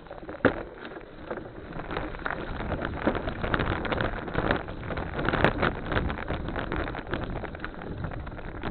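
Bicycle riding over a wet, rough trail: a steady rush of tyre and wind noise on the microphone, with many rattling clicks and knocks, growing louder about two seconds in.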